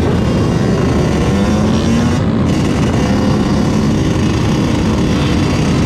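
Many motorcycle engines running at once, several revving up and down over a loud, steady din.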